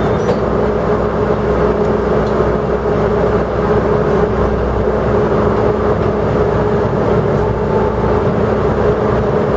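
Kantō Railway KiHa 102 diesel railcar running, heard inside the car beside the driver's cab. There is a steady, even drone of engine and running gear, with a constant mid-pitched tone over a low rumble.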